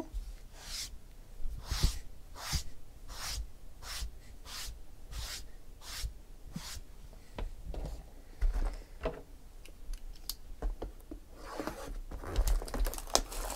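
Plastic wrap and cardboard of a trading-card box rustling and tearing as the box is opened by hand, in a quick run of short scraping strokes. A few low thumps of the box on the table follow, then more rustling near the end.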